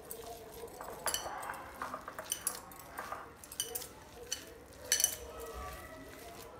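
Hand mixing and pressing a damp dough of ground corn and semolina in a glass bowl: soft squishing with a run of sharp clinks against the glass, the loudest about five seconds in.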